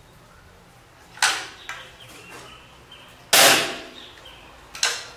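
Break-barrel spring-piston air rifle being worked and fired. A clack about a second in as the barrel is snapped shut, then one shot a little after three seconds, the loudest sound here, and two shorter clacks near the end.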